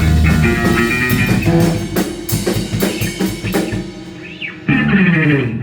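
Rock band playing live: guitar, bass and drum kit. About two seconds in it breaks into separate drum hits with cymbals, then ends on a falling pitch slide and stops just before the end.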